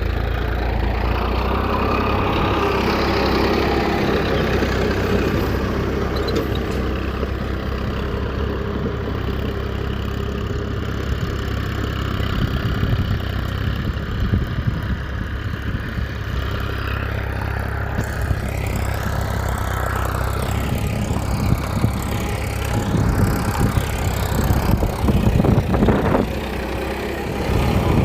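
A small motor running steadily, with irregular rattling in the second half.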